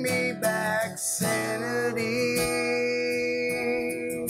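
Live acoustic country song: a man's voice sings a few short notes, then holds one long note for about three seconds, over a strummed acoustic guitar.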